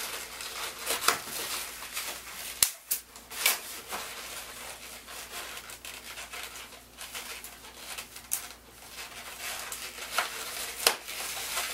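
Latex 260 twisting balloons rubbing and squeaking against each other as they are twisted and handled, with several sharp clicks among the squeaks.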